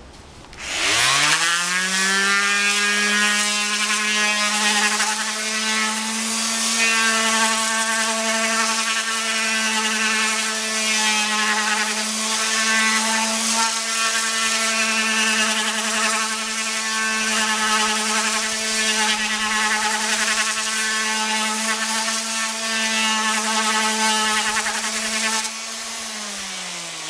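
Corded electric orbital sander spinning up about a second in, then running steadily with a hum and the hiss of its abrasive on Bondo filler over a steel motorcycle fuel tank. Near the end it goes quieter and its pitch falls as it winds down.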